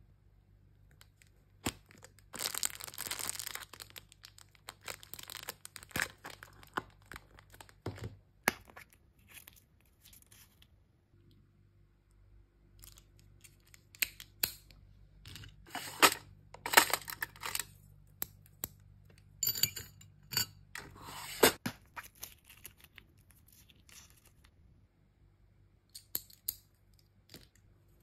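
Hands handling hair accessories and their packaging: several bursts of rustling and crinkling, with scattered sharp clicks and taps in between.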